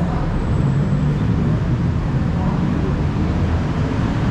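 Steady low rumble of busy city road traffic.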